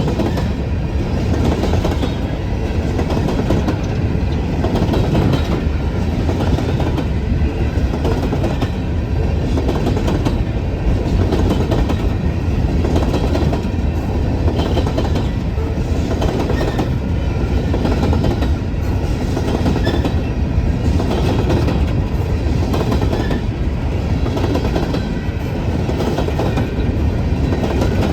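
BNSF coal train's cars rolling past at steady speed: a continuous heavy rumble of steel wheels on rail, with a clickety-clack of wheels over rail joints.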